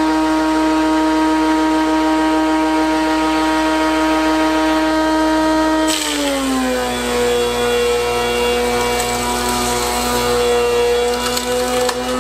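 DeWalt DW735 thickness planer, fitted with a Shelix helical insert cutterhead, running with a steady high whine. About six seconds in a board starts through the cutterhead: the pitch drops as the motor takes the load, and a hiss of cutting wood joins the whine.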